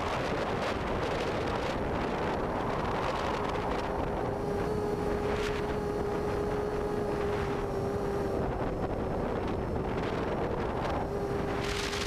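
Havoc 340 quadcopter's Cobra 2213 brushless motors and 6-inch propellers whining at a steady pitch that dips slightly and comes back, with wind rushing over the onboard camera's microphone in short gusts.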